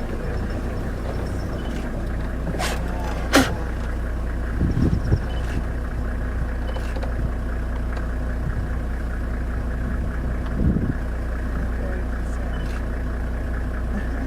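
Steady low hum of an idling vehicle engine, with two sharp clicks a little under and a little over three seconds in, the second the louder.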